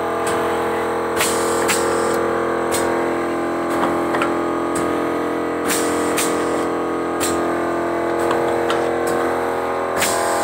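Automatic small-box packing machine running: a steady mechanical hum with sharp pneumatic clack-and-hiss strokes, often in pairs about half a second apart, recurring every few seconds as the cylinders cycle.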